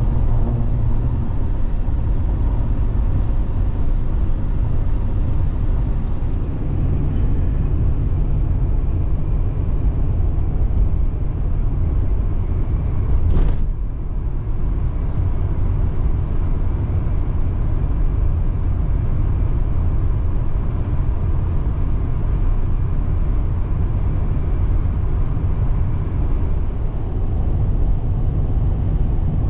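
Pickup truck cruising at highway speed: a steady low rumble of tyres and engine. A single sharp knock comes about halfway through.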